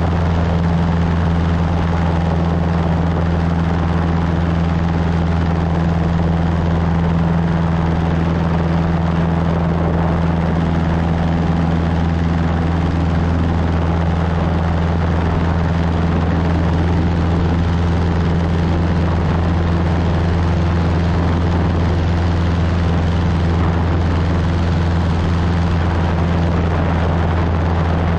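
Cessna 150's four-cylinder Continental O-200 engine and propeller droning steadily in flight, heard from the cockpit.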